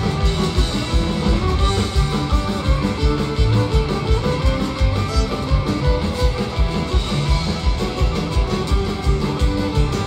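Live folk-punk band playing loud through the venue PA: a driving, regular drum beat under electric guitars and fiddle.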